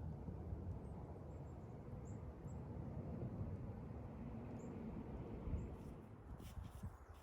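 Outdoor ambience: a steady low rumble with several faint, short, high bird chirps, and a few soft clicks near the end as the rumble fades.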